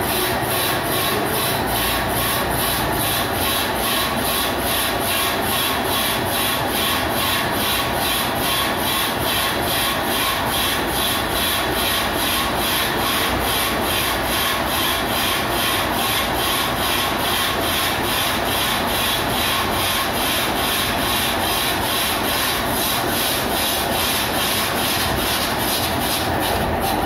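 Belt-driven rig of a 1200 W electric motor, heavy flywheel and 3 kVA alternator running steadily at speed, with an even rhythmic beat about twice a second.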